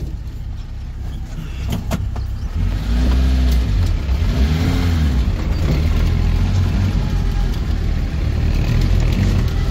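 Off-road 4x4's engine running with its idle raised to keep it from stalling; about two and a half seconds in it grows louder and stays so as the vehicle drives off.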